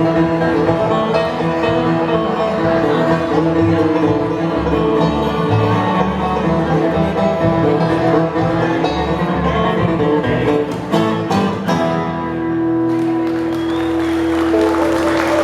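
Live bluegrass band playing the instrumental close of a song with plucked strings, then a few sharp accents and a final chord held out for the last few seconds. Applause begins near the end.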